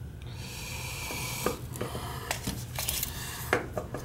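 A handful of short clicks and knocks from pipe fittings and the gas valve being handled, over a steady low hum.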